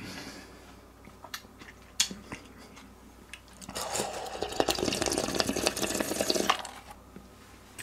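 A few light clicks, then about three seconds of liquid sound as the leftover udon broth is emptied out of the aluminium foil tray.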